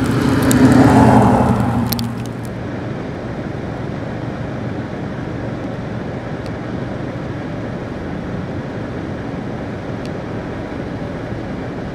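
A pickup truck with a snowplow passing by on a slushy road: engine and tyre hiss on wet slush, loudest about a second in and fading by two seconds. After that, a steady rumble and hiss holds to the end.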